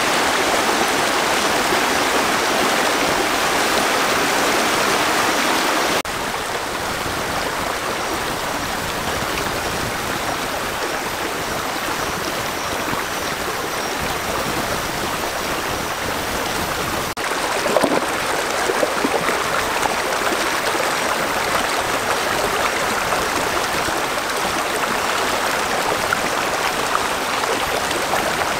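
Shallow rocky stream rushing over stones in a steady wash of water. From a little past halfway, short splashes come through it as feet wade in the water.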